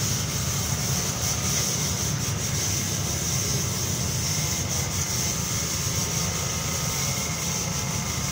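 Steady outdoor background noise: a low rumble under an even, high-pitched hiss, with no distinct events.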